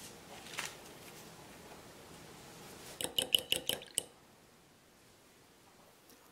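Metal fork beating an egg in a small glass bowl, clinking against the glass in a quick run of about eight strikes lasting about a second.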